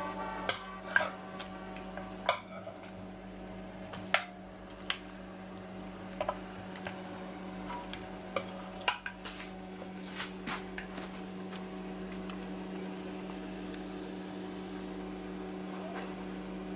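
Kitchen clatter: dishes, pots and utensils knocking and clinking a dozen or so times, mostly in the first twelve seconds, over a steady low hum.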